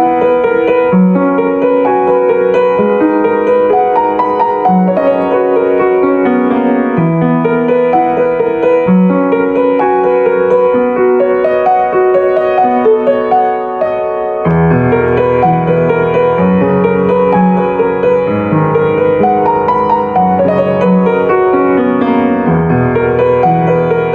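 Background music led by piano or electric piano, with chords changing about every two seconds; a deeper bass comes in about halfway through.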